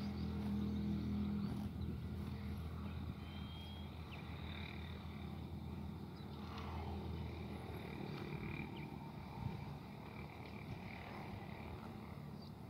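A steady low machine hum, louder in the first couple of seconds and then easing off, with faint high bird chirps over it.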